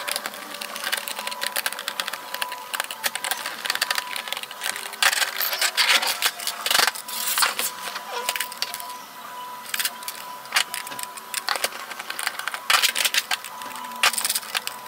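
Irregular small clicks, ticks and knocks of a Phillips screwdriver backing screws out of a plastic Nerf Rival Kronos blaster shell while the plastic body is handled and turned over.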